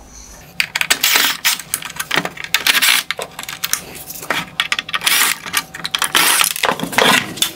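Cordless drill-driver backing out Phillips screws from a plastic LED headlight reflector assembly, with rapid rattling and clicking of metal screws against plastic. It starts about half a second in and goes on in uneven spurts.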